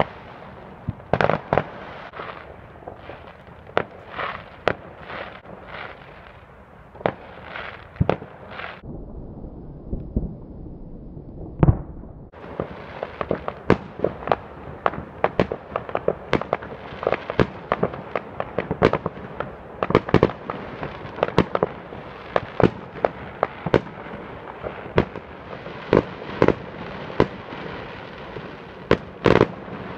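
Aerial fireworks bursting in a run of sharp bangs, one or two a second at first. About nine seconds in they almost stop, with a single loud bang, then come back faster and closer together, several a second, to the end.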